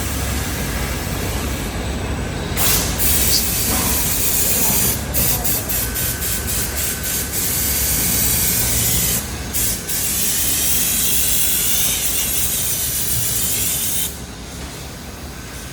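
Ring saw blade cutting, a loud hissing noise that starts about two and a half seconds in, breaks up into quick on-off stretches and a short gap, and cuts off near the end.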